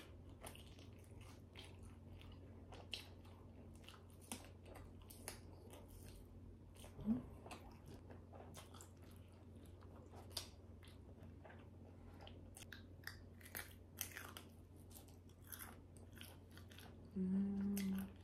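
Close-miked mouth sounds of a person chewing a cheese-filled sausage: quiet, scattered wet clicks and smacks. A short hummed "mmm" comes near the end.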